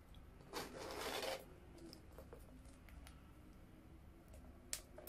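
Zipper on a small Louis Vuitton cosmetic pouch pulled in one stroke of just under a second, followed by a few light handling clicks and rubs, with one sharper click near the end.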